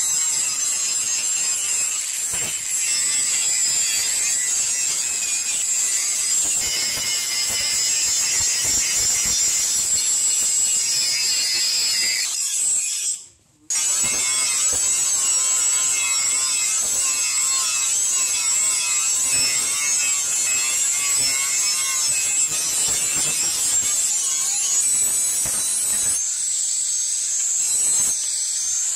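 Electric angle grinder with an abrasive sanding disc on a rubber backing pad, running steadily against the steel face of a hoe blade: a continuous high whine with the rasp of abrasive on steel. It cuts out briefly about halfway through, then runs on.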